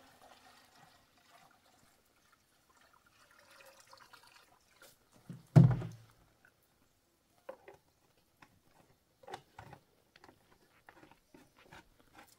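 Water being poured from a plastic jug into a plastic jerrycan, then one loud, hollow thump about five and a half seconds in as a plastic container is set down, followed by scattered small clicks and knocks of plastic containers being handled.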